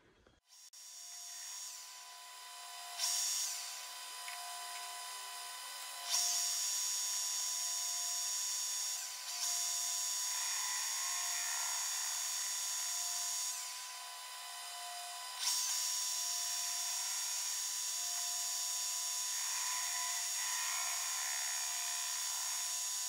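Metal lathe running with a boring bar cutting out the centre hole of a flail mower roller end. A high-pitched hiss of cutting comes in sharply about four times as the tool is fed into the bore and eases between passes, over the lathe's steady whine.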